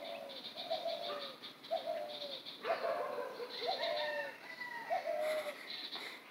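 Dove cooing: a short falling coo repeated about once a second, six times.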